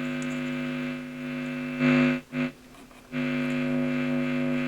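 Marshall 2554 valve amp's steady buzz and hum through its speaker while its pots are turned. About two seconds in it swells briefly, then cuts out almost completely for about a second before coming back, as a control is swept down and up again. The pots are being checked for scratchiness.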